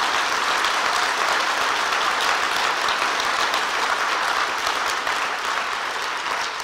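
Audience applauding steadily in a large hall, beginning to fade near the end.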